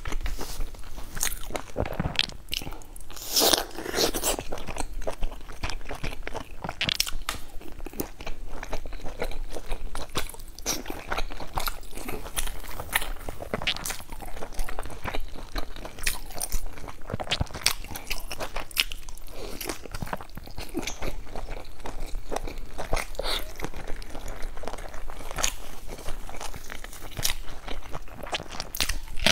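Close-miked eating: chewing with repeated crisp, crunchy bites. Near the end, a bite into a raw red onion.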